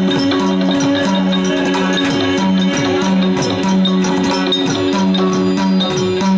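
Yakshagana dance accompaniment: maddale drum strokes with falling tones and small hand cymbals keep a fast, even rhythm over a held droning note.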